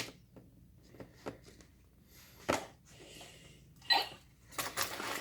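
Handling noises: a sharp click at the start, a few light clicks, then short rustling bursts that grow busier near the end.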